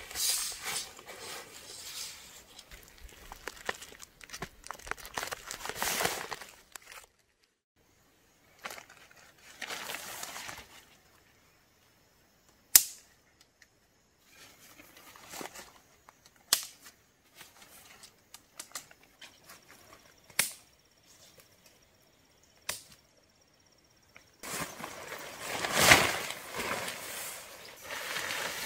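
Nylon tent fabric rustling and flapping as a dome tent is pitched and raised, broken by four sharp clicks of the tent's clips snapping onto the poles.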